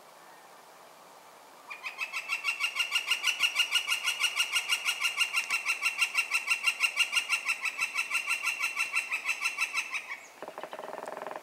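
Northern flicker giving its long call, a rapid, even series of loud 'wik-wik-wik' notes at about seven a second that lasts about eight seconds. Shortly after it stops comes a brief burst of very fast drumming on the dead tree.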